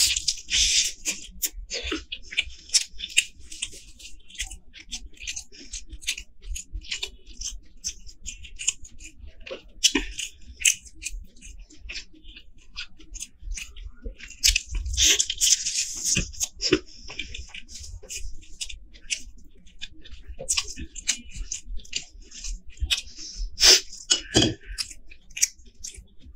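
Close-up mouth sounds of a person eating a masala-coated chicken leg: wet chewing and biting with many small clicks. There are louder bursts of crunching and tearing near the start and again about halfway through.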